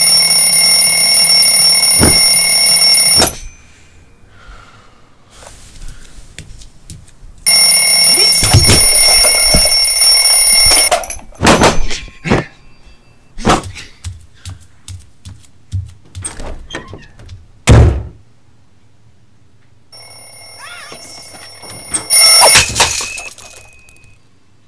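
Mechanical twin-bell alarm clock ringing in three spells, each one stopping suddenly. Between the second and third spells comes a string of separate knocks and thumps as the clock is grabbed and handled.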